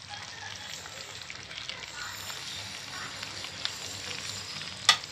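Chicken curry frying in a pan over the flame, a steady crackling sizzle, with one sharp tap near the end.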